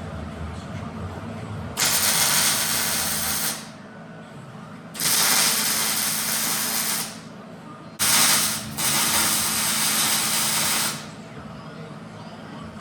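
MIG welder tacking a rolled steel strap band in place: three bursts of steady sizzling hiss, each about two seconds long, the third briefly stopping and restarting.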